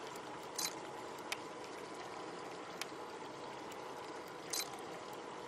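Water lapping and trickling, with a few sharp clicks or splashes: two stronger ones, near the start and near the end.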